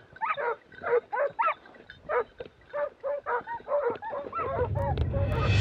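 A hunting dog yelping over and over, about three short rising-and-falling yelps a second. Near the end a low rushing noise swells up and the yelps fade under it.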